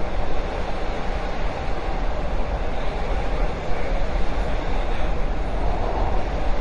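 Subway train running at speed, a steady rumble of wheels on track with constant low noise and no distinct clicks or announcements.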